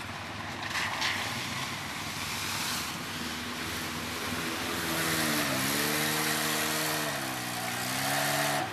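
Quad bike (ATV) ploughing through a shallow river: a rush of splashing water, with its engine note coming through about three seconds in as it climbs out onto the gravel bank. The revs dip and rise twice.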